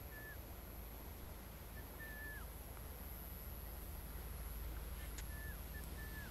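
A bird calling: short whistled notes, each held level and then dropping at the end, repeated several times over a faint outdoor background. A single sharp click sounds about five seconds in.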